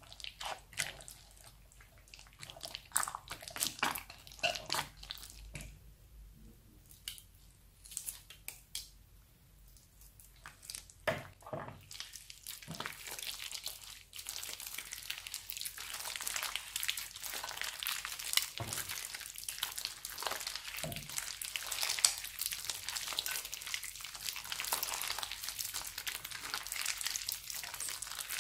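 Crunchy slime full of foam beads being stirred with a spoon in a glass bowl, giving scattered sticky squelches and clicks. About halfway through it is lifted, stretched and kneaded by hand, and the sound turns into a dense, steady crackling.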